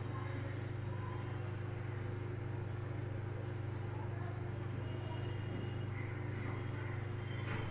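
Steady low background hum with no speech, with a few faint brief sounds near the end.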